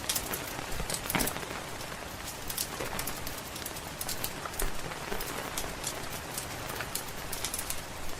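Steady rain pattering, with a wood fire crackling: irregular sharp pops and snaps scattered throughout.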